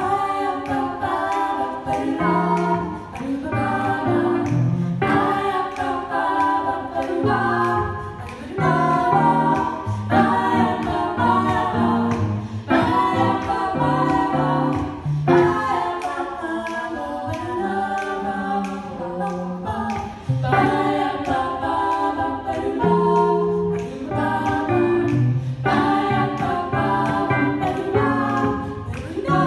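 Female vocal trio singing in close three-part harmony, jazz style, over a light guitar accompaniment that keeps a steady beat.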